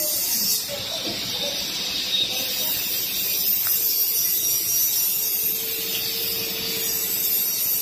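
CNC wood lathe cutting a spinning wooden bowl blank: a steady hiss of the cutters shaving wood. A faint steady tone comes in about three and a half seconds in.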